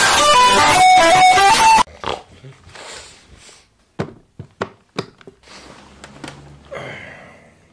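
Loud action-movie soundtrack, music and effects, blaring from a TV, cutting off abruptly about two seconds in. Then it is quiet apart from a few sharp clicks in the middle.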